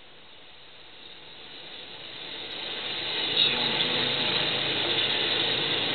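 Air-ambulance helicopter landing close by: the rotor and engine noise swells steadily over the first few seconds as it descends, then holds loud.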